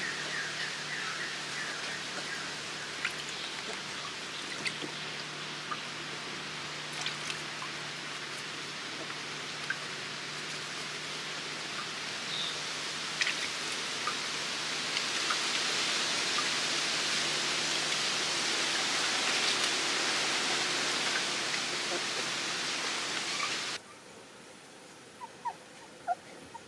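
Steady outdoor background hiss with scattered small clicks, a little louder in the middle stretch. It cuts off abruptly near the end, leaving a much quieter background with a few faint short chirps.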